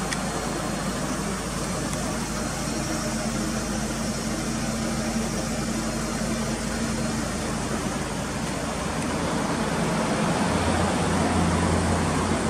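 Mitsubishi Lancer Evolution Wagon GT's MIVEC turbo four-cylinder engine idling steadily, with a low hum that grows somewhat louder near the end.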